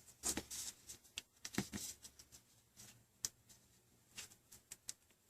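Faint scattered clicks, taps and brief rustles of small hand tools and fingers handling a tablet during a screen repair.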